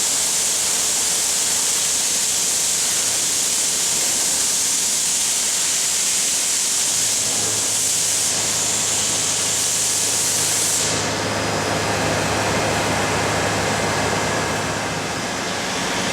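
1981 Lucas 30DCP-128 CNC horizontal boring mill running under power as its headstock traverses: a steady high hiss, with a low hum coming in about seven seconds in. The hiss cuts off sharply about eleven seconds in, and the machine noise goes on without it.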